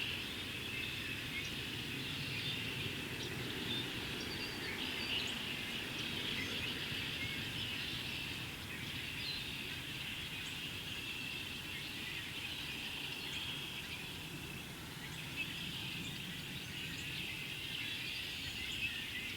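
Steady, dense chorus of a large mixed flock of red-winged blackbirds and cedar waxwings calling, a continuous high-pitched chatter with no single call standing out.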